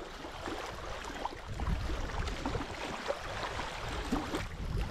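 Outdoor wind rumbling on the microphone over water lapping at a reservoir shore, with small scattered knocks and splashes.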